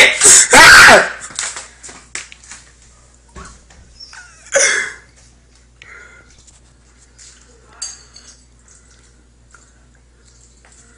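A loud, distorted vocal outburst close to the microphone in the first second. Then mostly quiet eating sounds: small clinks of a fork against a plate, with a short noisy burst about four and a half seconds in.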